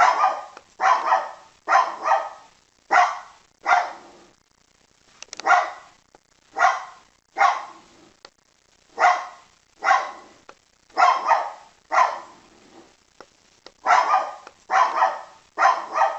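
Poodle barking repeatedly: about twenty barks, single or in quick pairs, with short pauses between groups.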